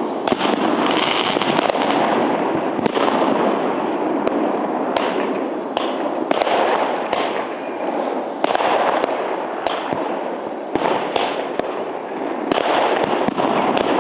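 Many fireworks going off at once: a dense, continuous crackle and rumble with many sharp cracks and bangs from rockets and firecrackers throughout.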